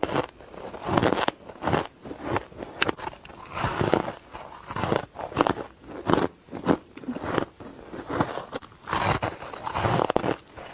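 Ice being bitten and chewed close to the microphone: a rapid, irregular series of sharp crunches and crackles.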